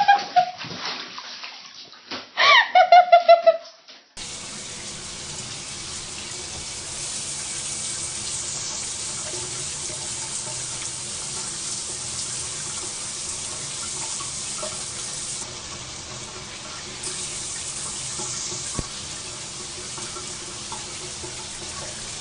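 A bathtub splash and a person's loud high cries in the first few seconds, then a tap running in a steady stream for the rest.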